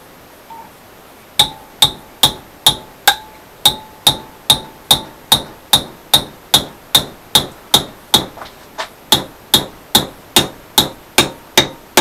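Hammer beating a steel rod clamped in a bench vise to bend it into a pump handle. The blows start about a second and a half in and keep a steady rhythm of about two and a half a second, each with a short metallic ring.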